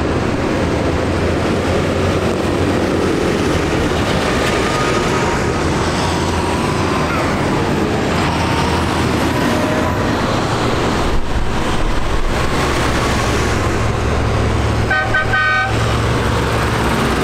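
Diesel engines of a line of tractors, a John Deere and New Holland tractors among them, running steadily as they drive past one after another on a wet road. A horn sounds in a quick run of short pulses about fifteen seconds in.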